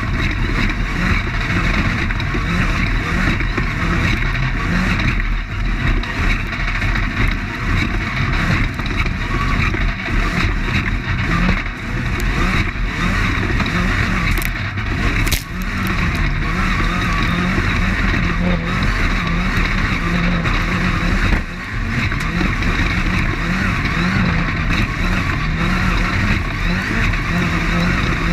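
Off-road desert race car heard from on board at racing speed: the engine pulls hard and steadily over a heavy rush of wind, tyre and chassis noise. The engine note wavers, and the sound dips briefly three times.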